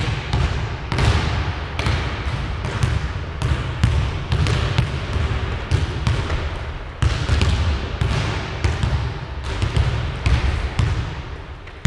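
Basketball bouncing on a wooden gym floor as it is dribbled, a thud every second or so, each one echoing in the hall, over a steady low rumble.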